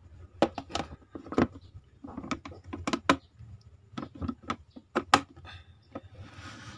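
Plastic storage tub's lid being fitted and its clip latches snapped shut: a run of sharp plastic clicks and knocks, the loudest about a second and a half in and again about five seconds in.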